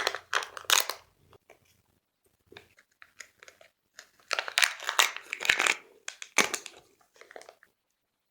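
Plastic candy packaging being crinkled and torn open by hand in irregular bursts, loudest in the middle, stopping shortly before the end.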